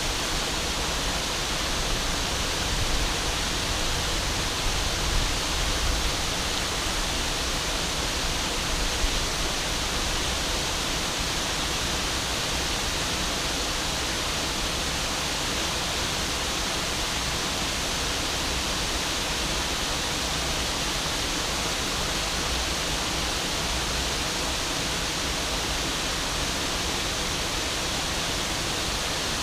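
River waterfall pouring over the falls, a steady unbroken rush of water with a strong low rumble underneath.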